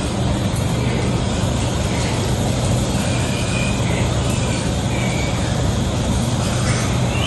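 A steady machine drone with a low hum and an even rushing noise over it, with a few faint, short high squeals a few seconds in.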